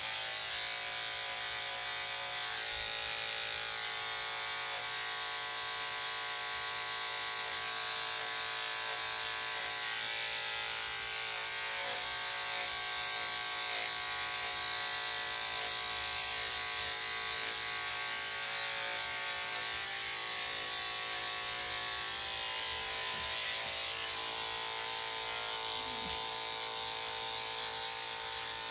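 Corded electric dog grooming clippers fitted with a #7 blade running steadily, a constant buzzing hum, as they shave through a Lhasa Apso's coat.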